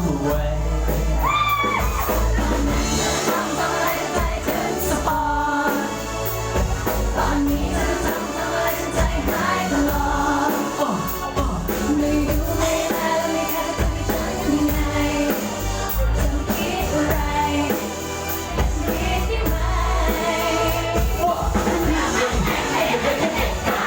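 Thai pop song with singing over a full band and a heavy bass beat.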